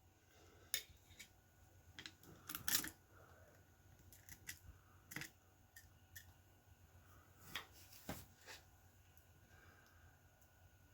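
Faint, scattered clicks and light handling noise of small parts and wires being worked by hand, about six sharp clicks spread unevenly, the loudest near the start and near the end.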